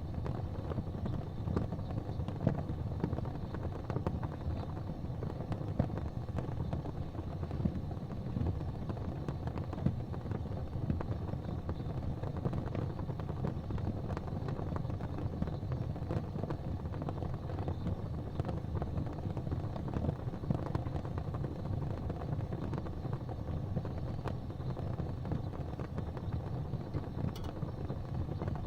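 Gas fireplace flames burning: a steady low rumble with frequent faint crackles and pops.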